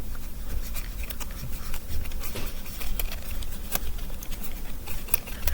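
A folded paper origami model being handled: light, irregular clicks and taps of paper, over a faint low rumble.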